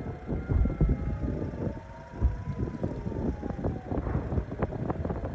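Civil-defence air-raid sirens wailing, several overlapping tones slowly rising and falling. A loud, uneven low rumble with buffeting, like wind on the microphone, lies over them.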